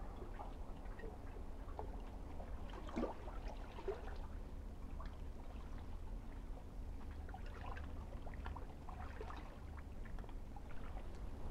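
Small waves lapping and trickling against shoreline rocks, with faint irregular splashes, a couple slightly louder about three and four seconds in, over a steady low rumble.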